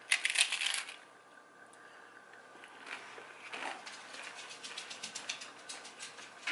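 A crunchy bite into a toasted hard-shell corn taco, a loud crackling crunch lasting about a second, followed by quieter, irregular crunches of chewing.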